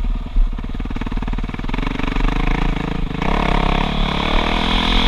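Motocross bike engine heard from the rider's helmet camera, accelerating out of a corner onto a straight: the engine note climbs, drops abruptly about three seconds in, and climbs again.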